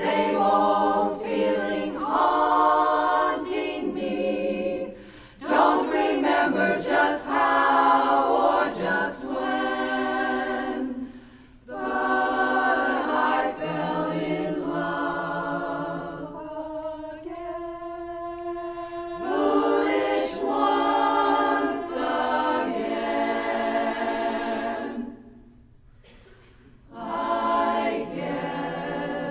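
Women's barbershop chorus singing a cappella in four-part harmony, phrase by phrase with short breaths between. A softer, thinner passage comes past the middle, and the singing stops briefly near the end before the next phrase.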